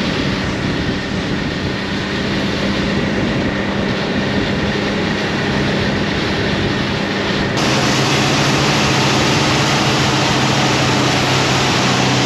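Snowmobile engines running steadily while riding over snow, with track and wind hiss. About seven and a half seconds in, the sound switches abruptly to a lower, slightly louder engine note.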